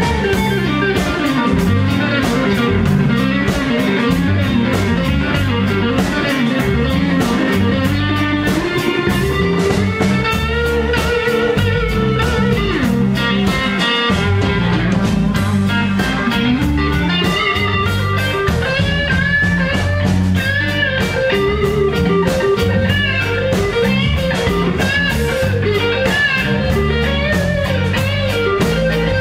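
Live blues band playing an instrumental break: an electric guitar lead with bending notes over bass guitar and a drum kit keeping a steady beat.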